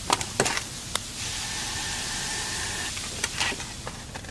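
Water being poured into a hot roasting tray, hissing steadily for about two seconds. A few sharp knocks of kitchenware come just before and after.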